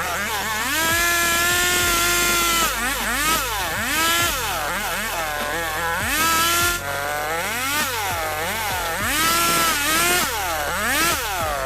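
Chainsaw running and being revved: its engine pitch holds high for a couple of seconds near the start, then sags and climbs back again many times, as under throttle changes or while biting into wood.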